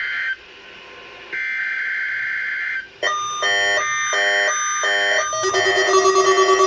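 Emergency Alert System SAME header data bursts: two harsh buzzing bursts of rapidly switching tones, the end of one and then a full one about a second and a half long. About three seconds in, electronic synthesizer music starts with a stuttering chord pattern and settles into a steady tune.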